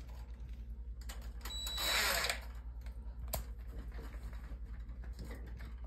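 Cordless drill running in a short burst about a second and a half in, driving a screw through perforated metal strapping to fasten a water heater, with a high motor whine. A sharp click follows about a second later, over a steady low hum.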